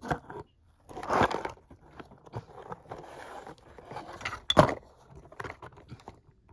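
Irregular rustling, crinkling and clicking handling noise, with louder crunchy bursts about a second in and again about four and a half seconds in.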